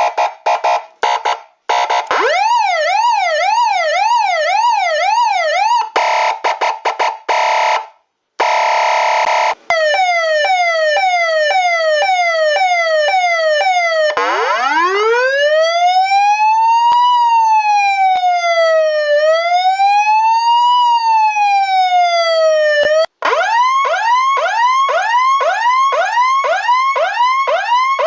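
A run of electronic emergency-vehicle siren patterns, switching abruptly one to the next. First come short stuttering blasts, then a fast wail about twice a second, then steady horn-like blasts and a held tone. After that come fast falling yelps, a slow wail rising and falling every few seconds, and last, quick rising whoops about twice a second.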